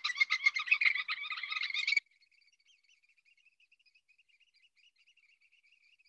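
Eurasian oystercatcher piping: a rapid, even run of loud high notes. About two seconds in it drops abruptly to a much fainter trill that carries on.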